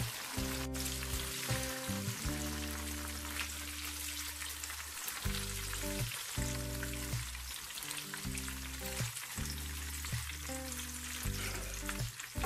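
Garlic, shallots, scallion whites and coriander stems frying in hot oil in a pan: a steady sizzle as the aromatics turn golden for shallot oil.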